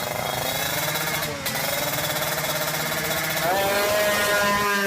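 Drag bike engines running hard at high revs, their pitch climbing, dipping briefly about a second and a half in, then stepping to a new pitch about three and a half seconds in.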